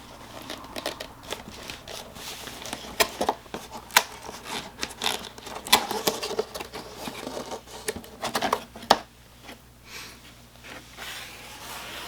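A box being opened by hand and its packaging handled: irregular rustling and crinkling with scattered sharp clicks and taps.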